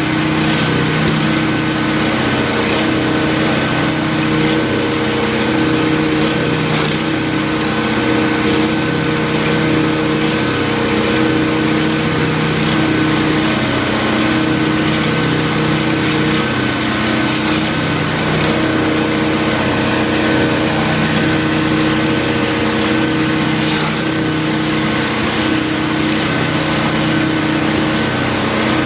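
13 hp wood chipper's engine running steadily at speed, with a high steady whine above the engine note. A few brief crackles stand out, about 7 s, 16 to 17 s and 24 s in.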